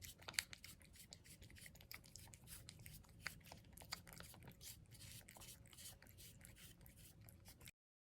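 Faint, rapid, irregular wet clicks and smacks of a cat licking a squeeze-up lickable treat, stopping abruptly near the end.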